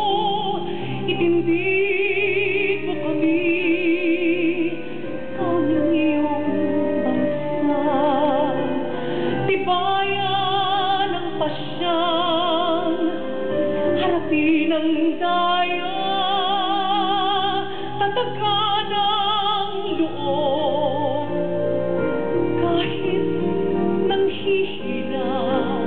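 A woman singing solo into a handheld microphone, in a full voice with wide vibrato on long held notes.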